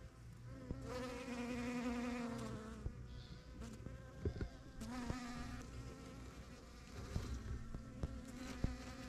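Bees buzzing as they fly close past among ground-cover flowers. The buzz swells and its pitch sags as one passes about a second in, and again about five seconds in. A few light clicks are heard.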